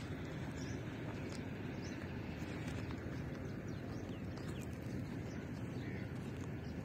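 Open-field rural ambience: a steady low rumble, with a few faint bird chirps now and then.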